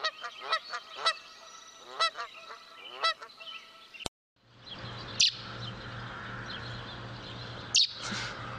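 A bird calling with repeated harsh, honk-like cries, about one or two a second, which stop suddenly about four seconds in. After that a steady low hum runs on, with two short, sharp high chirps.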